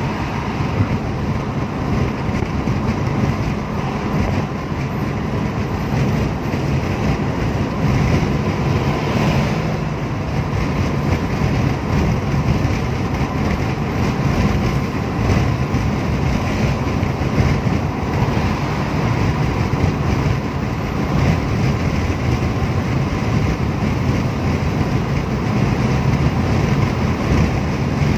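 Steady road noise inside a car's cabin while cruising on an expressway: low tyre rumble on the pavement with wind and engine hum, holding an even level throughout.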